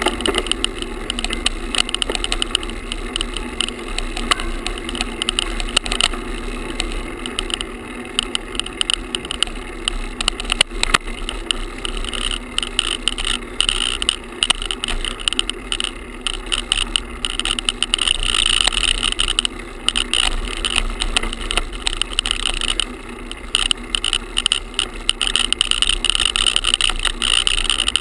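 Action camera tied to a road bike's handlebars with a shoelace, rattling and vibrating against the bars as the bike rolls over the pavement; a continuous buzzy rattle with many small rapid knocks.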